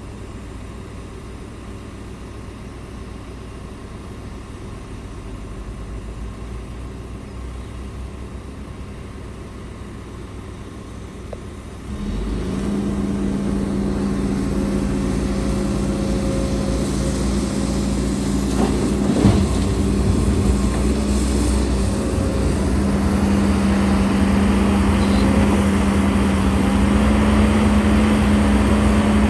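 Heavy diesel engine running at a low, quiet speed, then stepping up sharply about twelve seconds in to a louder, steady higher-speed hum that holds, with a single knock a few seconds later.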